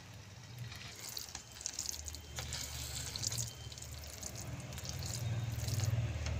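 Slotted spatula stirring soft, wet bread halwa in a non-stick kadai: wet squelching with light scrapes and clicks against the pan. A low steady hum runs underneath and grows a little louder near the end.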